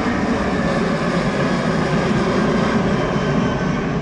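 Jet airliner flying low overhead, its engines giving a loud, steady roar.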